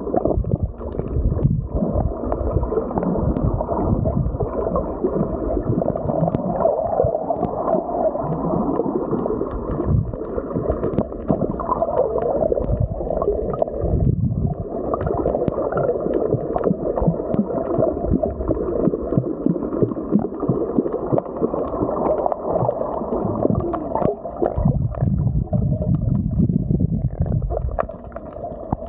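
Muffled underwater water noise from a snorkeler swimming: a steady churning rush and gurgling with faint crackling bubbles, swelling into a deeper rumble a few seconds before the end.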